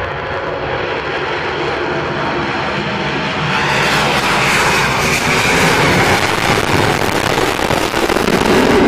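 Four afterburning turbofan jet engines of a B-1B Lancer bomber at full afterburner on the takeoff roll and lift-off. The steady noise grows louder and brighter about three and a half seconds in as the bomber comes past.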